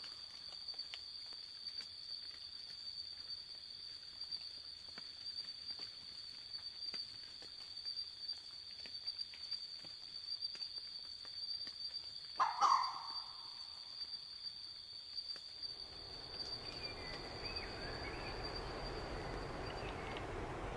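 A single short red fox bark about twelve seconds in, over a steady high insect trill. From about sixteen seconds a steady noise rises, and the trill stops near the end.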